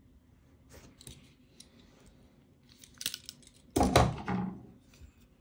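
Folding pocket knives being handled and set down: scattered small metallic clicks and rustles, with one louder knock just before four seconds in.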